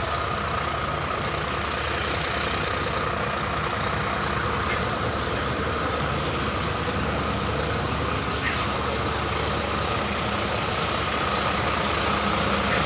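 An engine running steadily, with a constant high whine over a low hum.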